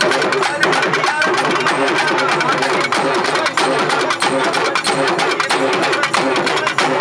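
Loud, dense festival-crowd din: many voices over a fast, unbroken clatter of beats, typical of procession drumming.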